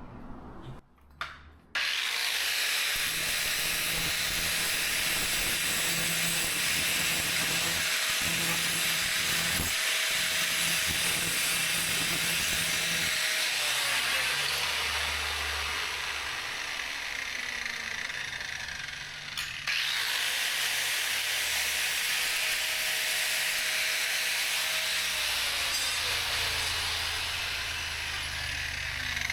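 Power grinder sharpening a steel lawn mower blade: steady grinding that starts about two seconds in, breaks off briefly a little after the middle, then resumes, with a faint tone sliding down in pitch twice as the blade is worked.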